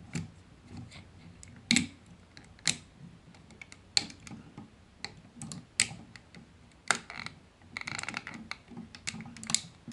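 Irregular sharp clicks and light knocks from the plastic and die-cast parts of a Takara Masterpiece MP-36 Megatron figure as a section is carefully rotated and unfolded by hand, with a short stretch of scraping about eight seconds in.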